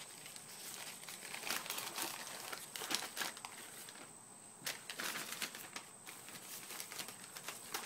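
Plastic poly mailer envelope crinkling and rustling in irregular bursts as it is handled and an item is pulled out of it, with a short lull about four seconds in.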